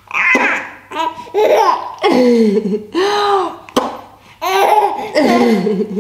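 Three-month-old baby laughing in about five short, squealing bursts while his feet are kissed and played with.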